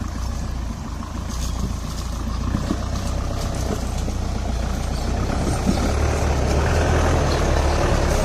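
Off-road 4×4 jeep's engine running at low speed as it crawls over rocks and potholes, a steady low drone that grows slowly louder, with a few faint rattles.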